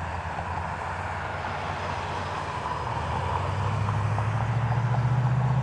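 Low, steady engine hum that grows gradually louder.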